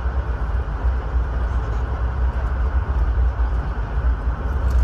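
Steady low rumble of a moving Amtrak Vermonter passenger train, heard from inside the car: wheels and running gear rolling on the track at speed.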